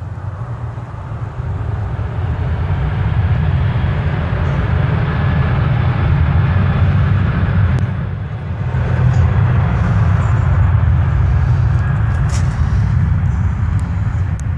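Boeing 737-800 jet engines at takeoff thrust: a loud, deep, steady rumble that swells over the first few seconds and dips briefly near the middle.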